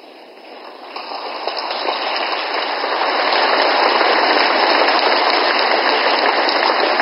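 Audience applauding, the clapping swelling over the first few seconds and then holding steady.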